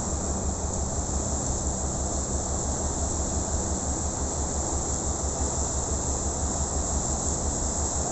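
Tugboat's diesel engines working as it pushes against a ship's hull: a steady low rumble with a fast, even throb, under a constant hiss.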